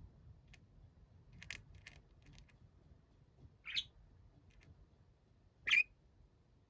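Budgerigar giving two short chirps about two seconds apart, the second louder, after a few light clicks.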